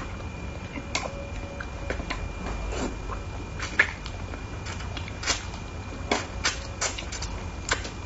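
Close-miked eating sounds: lips smacking and wet chewing of soft spicy braised carp, with scattered sharp mouth clicks, the loudest a little under four seconds in, over a steady low hum.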